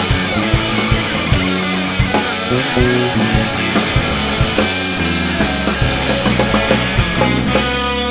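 Live rock band playing an instrumental passage: electric guitars, electric bass and drum kit. About seven seconds in the cymbals open up into a wash and a held note bends in pitch.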